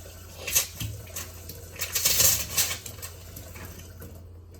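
Sink faucet on newly plumbed water lines opened for the first time, sputtering air and irregular spurts of water that clatter into the sink, with the loudest spurt about two seconds in.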